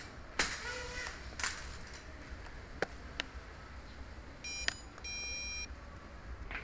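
Two short electronic beeps a little past halfway, the second a bit longer than the first, over a few faint scattered clicks.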